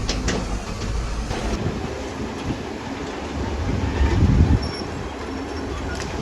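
Heavy earthmoving machinery at work: a diesel engine running under load, with a few sharp metallic clanks and a louder low surge about four seconds in.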